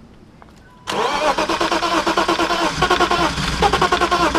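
BMW E36 325is's 2.5-litre straight-six being cranked over by the starter, a rapid, even chugging that starts about a second in. It does not catch and run: a crank-no-start, which the owners suspect comes from a failing fuel pump.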